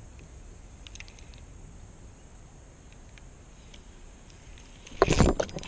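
Spinning reel being cranked during a retrieve, giving a few faint clicks over a faint steady hiss. About five seconds in comes a sudden loud noisy burst lasting about half a second.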